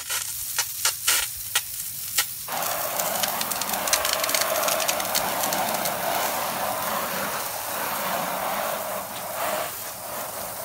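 Garden hose spray nozzle shooting a jet of water against vinyl house siding: a steady hiss that starts about two and a half seconds in and stops near the end, rinsing off mildew loosened by cleaning vinegar. Before the spray begins there are a few sharp clicks.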